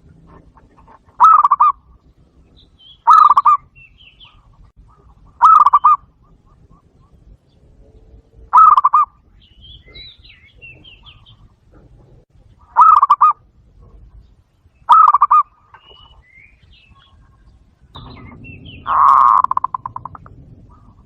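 Zebra dove calls played through a Bluetooth speaker: short, rapid, pulsed coos repeated about seven times, every two to four seconds. The last call, near the end, is longer. Faint chirps of small birds sound between the calls.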